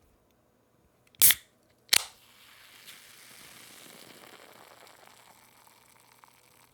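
Aluminium can of A&W Zero Sugar cream soda cracked open: a sharp click about a second in, then the pop of the tab, followed by a fizzing hiss of carbonation that fades over several seconds.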